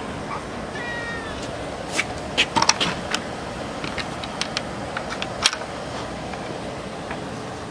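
Sharp metallic clicks and rattles of a wire-panel gate and its sliding barrel-bolt latch being handled, in a quick cluster from about two seconds in, over steady background noise. A short high squeak sounds about a second in.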